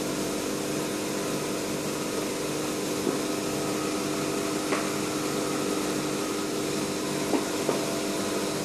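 Steady hum of a 20 W Raycus fiber laser marking machine's fans and electronics as it engraves stainless steel, with a handful of faint ticks: one about three seconds in, one near the middle, and two close together near the end.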